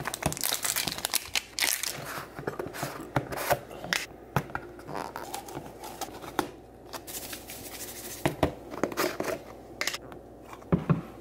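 Plastic pre-workout powder tub being opened and handled: the screw lid taken off, the inner seal torn and crinkled, and a plastic scoop dug into the powder. It comes as a run of irregular crackles, rustles and sharp clicks.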